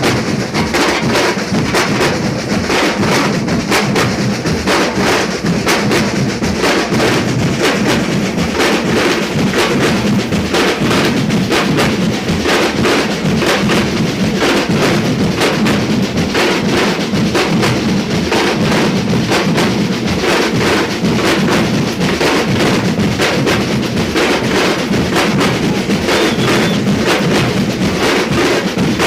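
Percussion ensemble of drums playing a dense, fast rhythm without a break, with deep bass drums under snare-like strokes.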